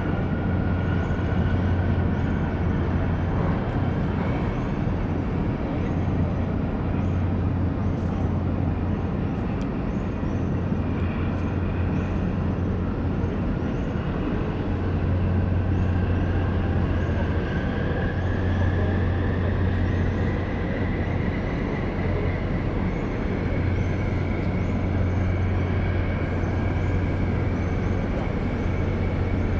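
Steady low drone of marine diesel engines from a harbour tug pushing against a large container ship's hull and from the ship itself during berthing. A faint high whine rises slowly in pitch in the second half.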